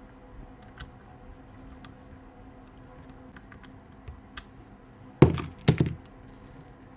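Light clicks and taps of drill parts being handled on a workbench, then two loud knocks about half a second apart near the end.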